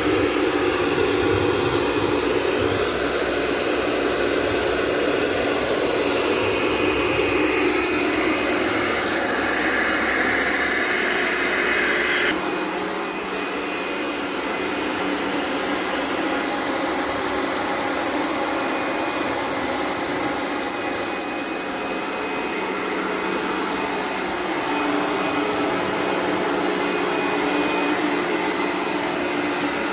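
A machine's motor running steadily with a blower-like whir. About twelve seconds in, its sound changes abruptly and the higher whine drops away, then it carries on steadily.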